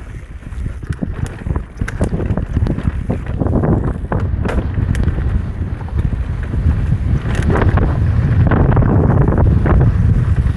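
Wind buffeting the camera microphone over the rumble of a mountain bike descending a rough dirt trail at speed, with many sharp clicks and knocks from the bike rattling over bumps, louder in the second half.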